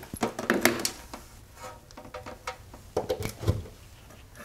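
A power cord and plastic plug clicking and rattling as they are handled and plugged into a wall outlet, in two clusters of sharp clicks, near the start and about three seconds in.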